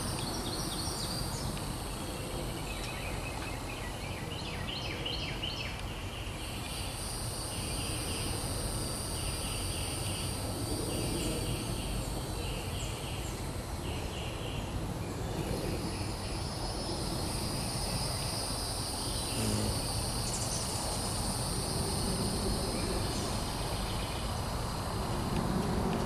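Outdoor summer ambience: a steady high drone of insects over a low background rumble. A bird sings short chirping phrases, repeated about once a second, through roughly the first half.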